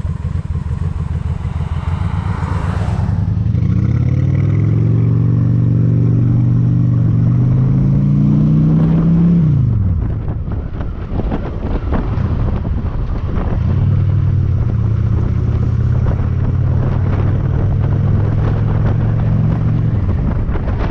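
Honda Shadow cruiser's V-twin engine pulling, its note rising steadily for several seconds, then falling away abruptly about ten seconds in. After a few seconds it picks up again and holds a fairly steady note before dropping off near the end.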